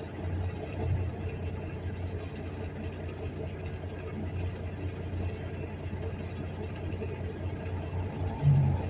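Car engine idling, a steady low hum while the vehicle sits stopped in traffic, with a short louder low sound near the end.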